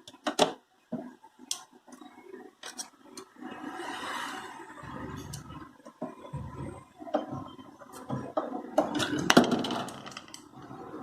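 Clicks, knocks and rustling from handling and fitting a replacement drain pump into a washing machine, with a few sharp knocks, the loudest near the start and about nine seconds in.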